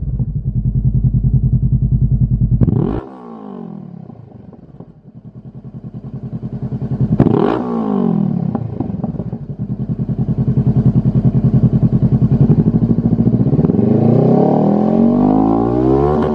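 Honda CB500F parallel-twin engine running through a Lextek YP4 stainless aftermarket silencer, stationary and revved: a steady idle with quick throttle blips about three and seven seconds in, then a longer rev that climbs and falls off near the end.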